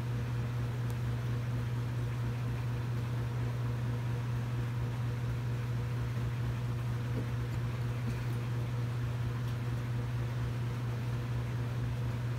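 A steady low motor hum with an even hiss over it, as of an electric fan running, with a few faint ticks.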